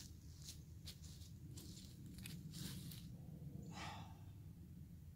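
Quiet background with a steady low rumble and a few soft rustles, and a man's sigh about four seconds in.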